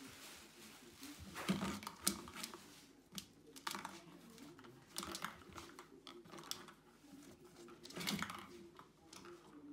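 A cat batting at a plastic ball-track toy: irregular clicks, knocks and short rattles of the plastic and the ball in its track.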